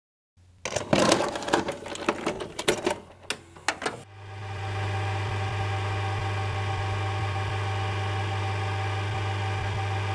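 Clicks and clatter of a videocassette recorder's tape mechanism for about three and a half seconds, then a steady low hum with hiss from about four seconds in.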